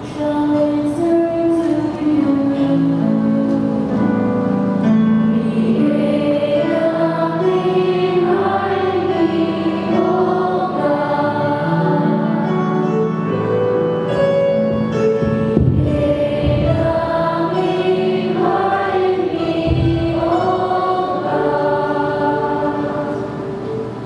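A choir singing a worship song, sustained and held notes throughout, with a few low thumps in the second half.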